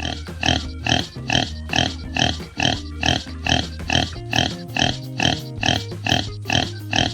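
A pig oinking in short, evenly spaced calls, about two a second, over background music.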